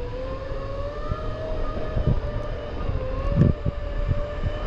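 Segway's electric motor whining, a steady tone that wavers slightly in pitch as the speed changes, with wind buffeting the microphone in low rumbles about two and three and a half seconds in.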